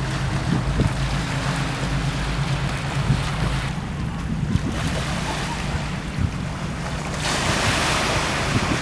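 Wind buffeting the microphone over the rush of sea water, swelling twice, with a steady low hum underneath.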